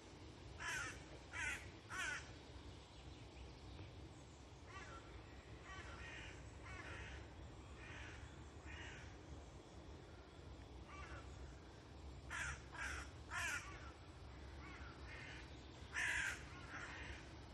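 Crows cawing in sets of three, with a set about a second in and another about twelve seconds in, and a single loud caw near the end. Fainter caws answer in between.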